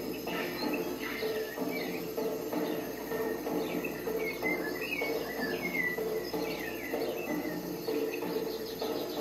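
Recorded jungle ambience: a dense, steady chorus of chirring insects with repeated short bird chirps over it.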